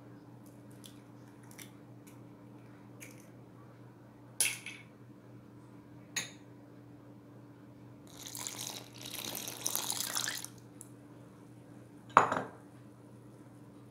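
Kitchen prep sounds at a glass mixing bowl of flour: light clicks as an eggshell is cracked open, then two sharp knocks. Milk is poured into the flour for about two seconds, and near the end a small glass bowl is set down with a loud, ringing clink.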